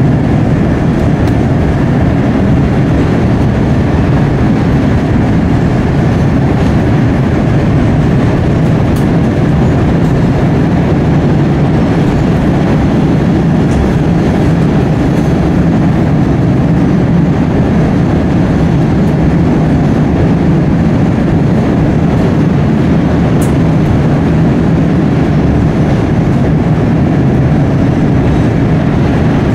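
Chicago 'L' rapid-transit train running at steady speed along the elevated structure, heard from inside the car: a loud, continuous rumble of wheels on rail.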